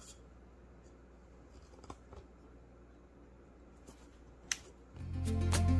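Faint taps and clicks of a plastic cup pressed down through rolled dough onto a wooden board to cut out English muffins, with one sharper click about four and a half seconds in. Guitar music fades in near the end.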